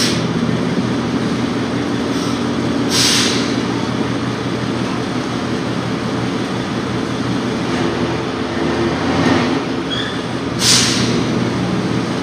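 Steady drone of machinery running, with two short hissing bursts about three seconds in and again near the end.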